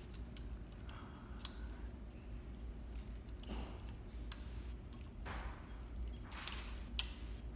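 Small metallic clicks and ticks of tweezers and a wire threader working inside a Juki MO-6700DA serger's looper threading path, with two sharper clicks about half a second apart near the end. A few soft rustles sit over a low steady hum.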